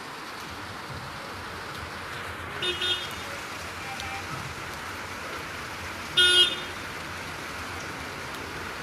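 Steady rain with two short horn toots, one about three seconds in and a louder one a little past six seconds.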